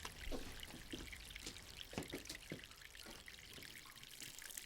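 Water dripping and trickling from a leaking pipe in small, irregular splashes.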